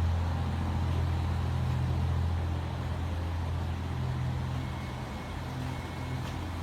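Motor vehicle running with a steady low engine rumble and road noise, slowly fading.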